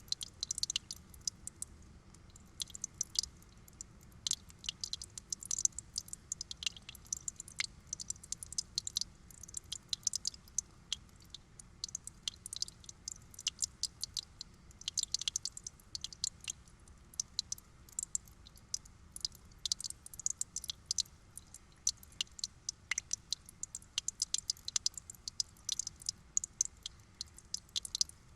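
Water trickling and dripping: a dense, irregular run of small wet clicks and droplets.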